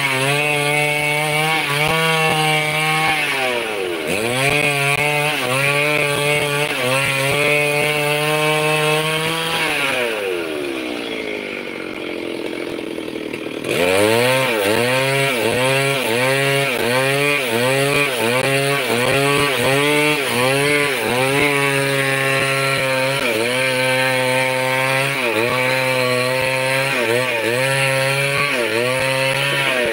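Petrol chainsaw ripping lengthwise along a squared timber beam. Its engine pitch dips and recovers about once a second as the chain bites under load. About ten seconds in, the engine drops to a lower pitch for a few seconds, then is throttled sharply back up to full speed.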